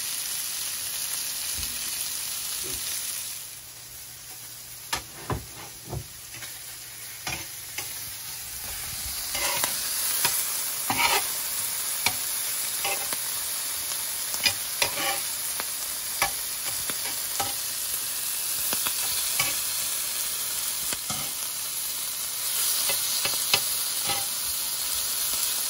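Floured calamari frying in oil in a cast-iron skillet, sizzling steadily with scattered sharp pops and clicks. The sizzle drops about three seconds in and builds back up a few seconds later.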